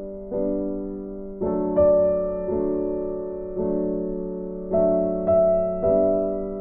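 Background piano music: gentle chords and notes struck one after another, each left to ring and fade.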